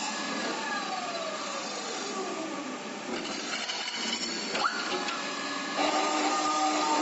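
Automatic metal pipe-cutting saw machine running, with a steady mechanical hum and whine. A tone falls in pitch over the first couple of seconds, a short rising sweep comes about four and a half seconds in, and the machine gets louder with new tones about six seconds in.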